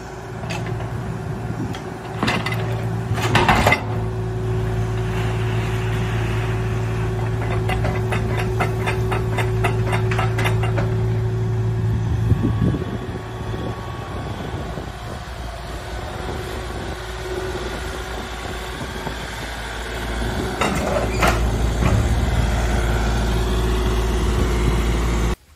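Mini excavator's engine running steadily under load as it hoists a steel underground oil tank out of the ground, with loud metal clanks and scrapes a few seconds in and again near the end, and a rapid rattle midway.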